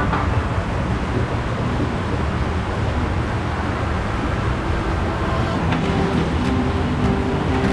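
Steady low rumbling background noise with a hiss over it, like running machinery.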